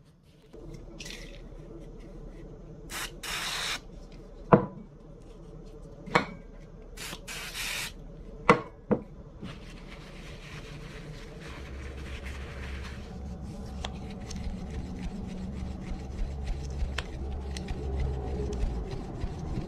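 Two short hisses of an aerosol lubricant spray, with sharp snaps of a Case XX Sod Buster slipjoint pocketknife's blade working on its backspring, then a rag rubbing over the knife for several seconds.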